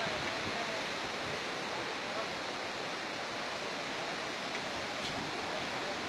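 A swollen river in spate, fast turbulent floodwater rushing with a steady, even noise.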